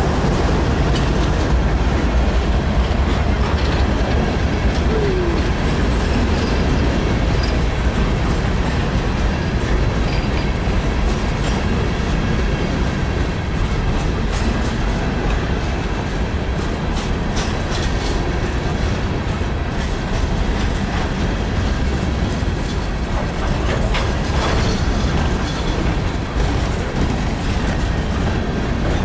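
Steel-wheeled coal hopper cars of a freight train rolling past in a steady, heavy rumble, with irregular clicks of the wheels over the rail joints.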